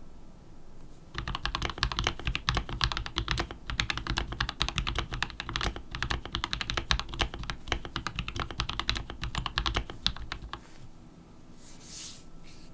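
Typing on a hand-wired, 3D-printed 65% mechanical keyboard with lubed Gateron CAP Yellow linear switches, plate-mounted with no bottom plate, and PBT keycaps. A dense, fast run of keystroke clacks starts about a second in and stops near the end, followed by a brief rustle.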